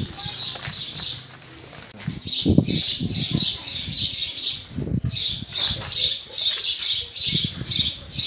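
A bird chirping over and over in loud, squawky calls at about three a second, with a pause of about a second early on; a few low thumps sound underneath.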